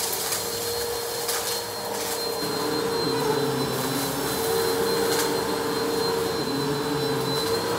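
Bissell PowerForce Helix Turbo bagless upright vacuum running over a shag rug and sucking up dry dirt and debris: a steady motor whine over rushing air, with a couple of sharp clicks as bits are picked up.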